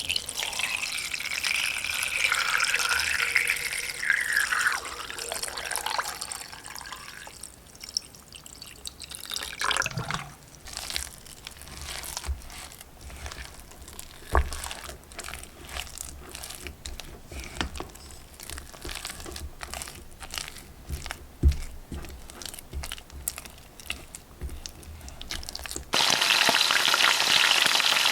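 Water pouring into a vessel, its pitch rising as it fills. Then, from about ten seconds in, dough being kneaded by hand with irregular soft slaps and squelches. Near the end, food starts frying in hot oil with a steady loud sizzle.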